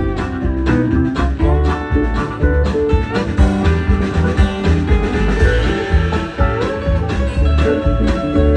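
Acoustic string band playing an instrumental break in a country-bluegrass tune: quick plucked guitar and banjo notes over a steady low bass pulse.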